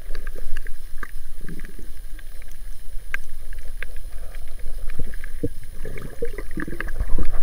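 Underwater sound heard through an action camera in a waterproof housing: a steady low rumble of water moving against the housing, with scattered sharp clicks and crackles.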